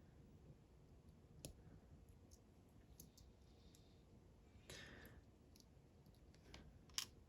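Faint, sparse clicks and taps of small metal lock parts (pins, springs and a pushing tool) being handled while the pin stacks are pushed out of a disassembled lock, with the sharpest click near the end.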